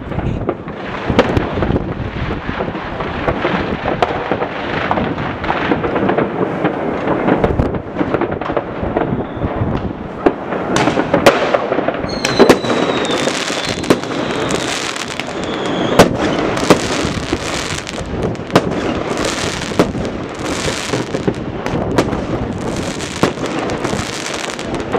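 Many New Year fireworks and firecrackers going off at once across a city: a steady barrage of bangs and crackling with frequent sharper reports. About halfway through, a whistle slides down in pitch.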